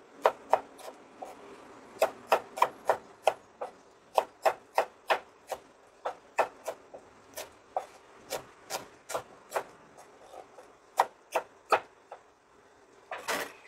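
A cleaver chopping shallots on a wooden cutting board: a run of sharp knocks, about two to three a second, that pauses briefly near the end, followed by a short scrape.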